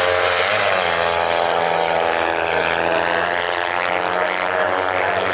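Several small-capacity Kawasaki racing motorcycles running at high revs as they pass, a steady buzzing engine note whose pitch dips and climbs again about half a second to a second in.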